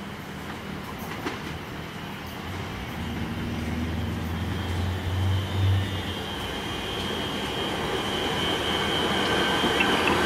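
Siemens Nexas electric suburban train running in alongside the platform, its rumble on the track growing louder as it nears. A low hum swells through the middle, and a steady high squeal builds over the second half.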